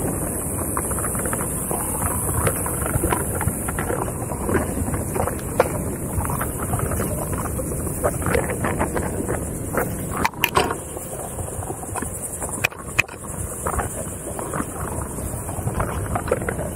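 Wind buffeting the microphone and a Onewheel's single tyre rolling over a dirt singletrack at around 8 to 15 mph, a steady rumble broken by scattered clicks and crackles from the trail surface and brush, with a few sharper knocks.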